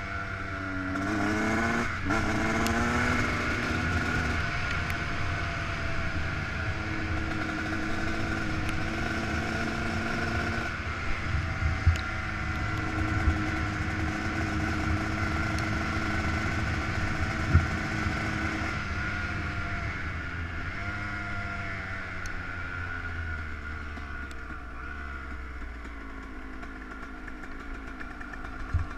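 Yamaha YZ125 two-stroke single-cylinder engine under way, climbing in pitch twice through quick gear changes in the first few seconds, then holding a steady speed. Later it eases off and winds down and is quieter near the end. A few sharp knocks come in the middle.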